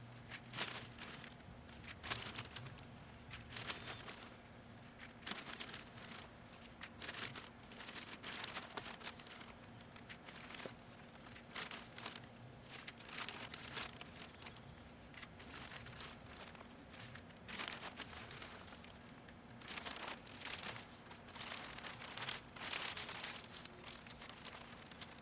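Gloved hands scooping and working potting soil into plastic planting pots: soft, irregular rustling scrapes. Near the end, a plastic bag of potting mix crinkles and soil pours from it into a pot.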